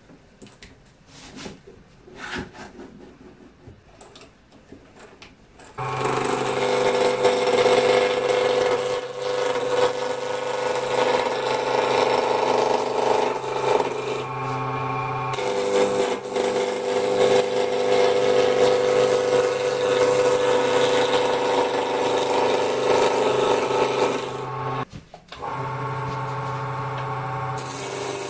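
Light knocks and clicks as a wood blank is fitted between the centres of a JET mini wood lathe; about six seconds in, the lathe starts and runs with a steady hum while a gouge cuts the spinning blank, a continuous scraping hiss of wood being turned. The sound briefly drops away near the end, then the lathe runs on.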